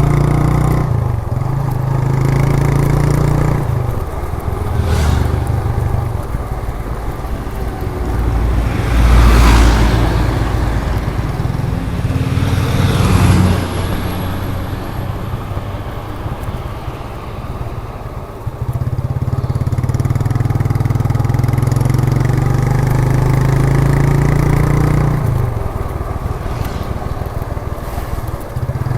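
1998 Suzuki GN125 single-cylinder four-stroke engine running through its exhaust on the move. The note shifts as the throttle and gears change: it eases off for a few seconds past the middle, then pulls strongly again. Two loud swells of passing traffic come near the middle.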